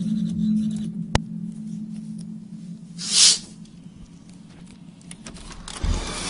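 Steady low droning hum of the reported 'groaning' sky sound, fading away over the first two seconds. A sharp click comes about a second in, a short loud hiss about three seconds in, and a thump near the end as a broad traffic-like noise rises.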